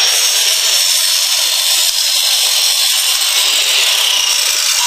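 Steady high-pitched whirring of construction power tools running without a break.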